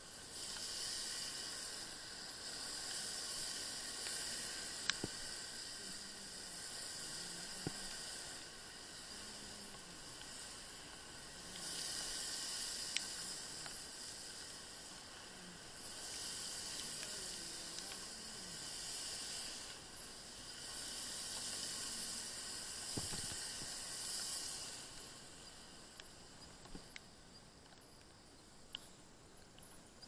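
Hiss of tyres on a rain-soaked road, swelling and fading in waves a few seconds long, then easing off over the last few seconds, where a few faint ticks come through.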